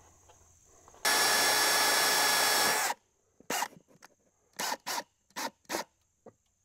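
Cordless drill running hard against the house wall for about two seconds and stopping abruptly, then a series of short drill bursts of under half a second each.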